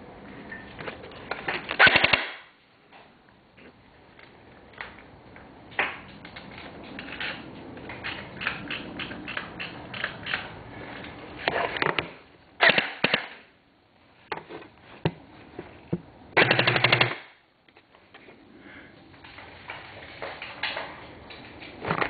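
Echo 614 airsoft gun firing rapid bursts of shots, with scattered single shots between them. The bursts come about two seconds in, twice around the middle and once near the end.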